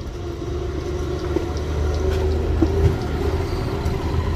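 Passing road traffic: a vehicle's engine rumbling steadily, growing a little louder partway through.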